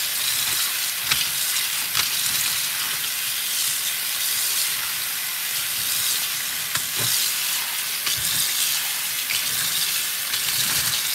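Kitchen tap water running in a steady rush onto boiled soba noodles in a bamboo strainer over a stainless steel sink, while a hand rubs the noodles under the stream to wash off their sticky starch.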